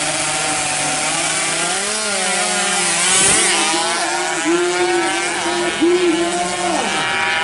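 Two-stroke 116 cc underbone drag motorcycles revving hard through the gears, the engine pitch climbing and dropping back again several times at the shifts.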